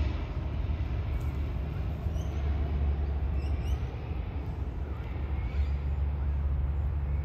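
Outdoor ambience: a steady low rumble, with a few faint short bird chirps about two and three and a half seconds in.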